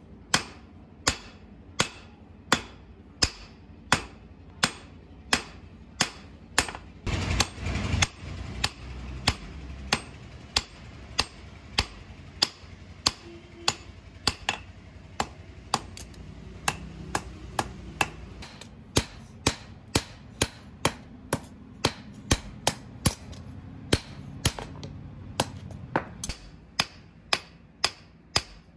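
Hand hammer striking a red-hot steel knife blade on a steel anvil in steady, evenly paced blows, about one and a half a second, as the blade is forged to shape.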